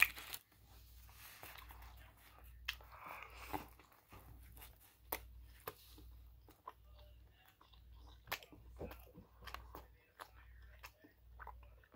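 A person chewing a bitten egg, sausage and cheese sandwich on an English muffin, close to the microphone. Soft, irregular mouth sounds with scattered small clicks and smacks.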